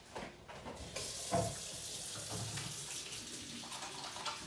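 Kitchen tap turned on about a second in, water running steadily into the sink while hands are washed.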